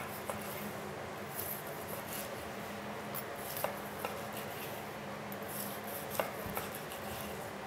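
A long thin slicing knife is drawn back and forth through a thick seared ribeye, with a few light clicks of the blade against the wooden cutting board.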